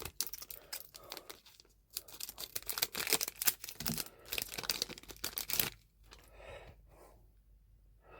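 A foil Pokémon booster pack wrapper being torn open and crinkled: a quick run of crackling tears for about the first five and a half seconds, then a few faint handling sounds.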